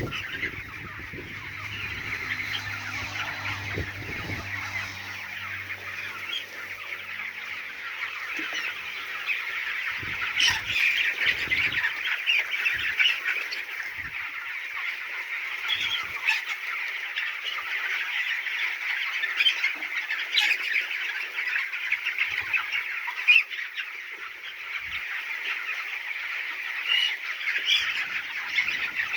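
A large flock of twenty-two-day-old poultry chicks cheeping continuously, many overlapping high chirps. A low steady hum runs under it for the first several seconds, then fades.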